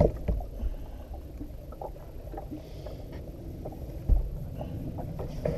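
Low steady rumble of water and wind around a bass boat, with scattered small knocks and clicks of handling on the deck as a smallmouth bass is worked out of the net, and one sharp thump about four seconds in.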